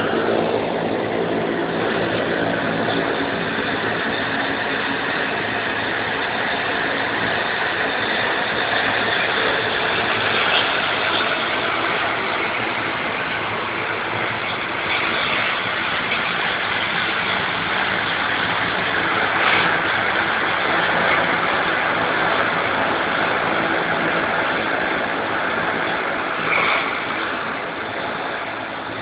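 Engine of an airport ground-service vehicle running steadily as it drives across a flooded apron, a low engine hum under a constant rushing hiss.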